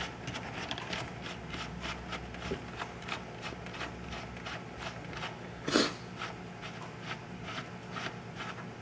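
Billet headlight adjuster screw being turned by hand, driving its bolt into the adjuster on a plastic HID projector housing: a run of light clicks, about three to four a second, with one louder knock about two-thirds of the way through.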